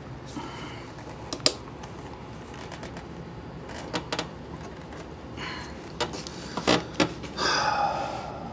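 Hands working plastic wiring-harness connectors in a Jeep Wrangler TJ's engine bay: scattered sharp clicks and knocks, then a short scraping rustle near the end.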